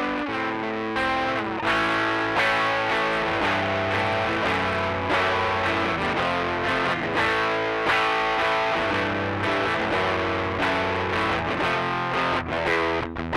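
Electric guitar played through a Rocktron Austin Gold overdrive pedal, with the drive at twelve o'clock and the pre-bass full up, giving a light overdrive. Sustained chords and melodic notes ring on, with quicker picked notes near the end.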